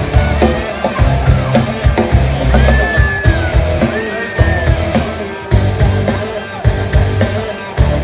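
Rock band music playing loud, with a heavy drum beat and bass. Two long sliding high notes come about two and a half and four seconds in.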